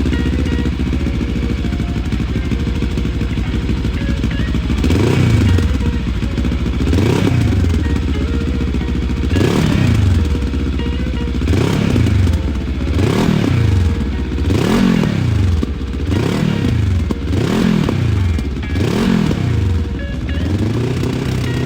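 Benelli TRK 702 X parallel-twin engine running through a GPR Dual Poppy aftermarket exhaust. It idles steadily for about five seconds, then gets a series of about a dozen throttle blips, each revving up and falling straight back to idle.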